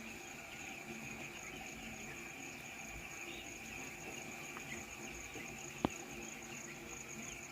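Dense peeping of a large brood of week-old chicks: a steady mass of many short, high chirps. A single sharp click comes near the end.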